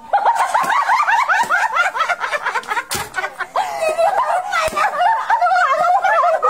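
Women laughing hard in quick, high-pitched bursts, with a couple of sharp smacks, the loudest about three seconds in.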